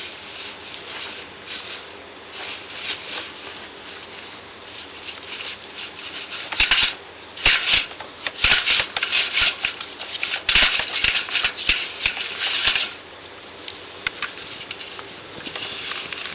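Crackly scraping and rattling with many small clicks from a drain inspection camera's push rod being fed along the pipe, loudest in dense bursts from about six to thirteen seconds in.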